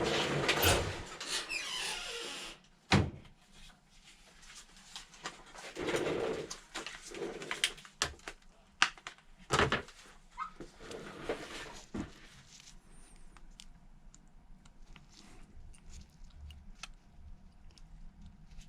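Small tools and phone parts being handled on a repair bench while a replacement screen is fitted: scattered light clicks and taps, with a few louder knocks about three, six and ten seconds in, quieter after about twelve seconds.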